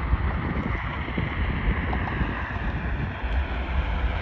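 Wind buffeting the microphone, an uneven low rumble over a steady rushing noise.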